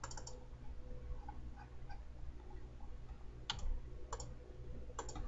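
Sharp computer mouse clicks: one at the start, then a few more about three and a half to five seconds in, the last two in quick succession, over a faint steady hum.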